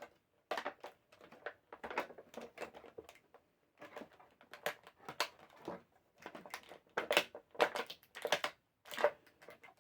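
Stiff plastic action-figure packaging crinkling and clicking in irregular bursts as accessories are pulled out of their plastic tray.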